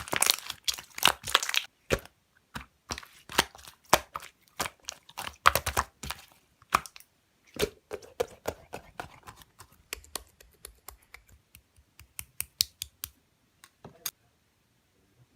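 Slime being squeezed and pressed by hand: a dense run of sharp clicks and small pops from trapped air, thinning out to scattered ticks after about ten seconds.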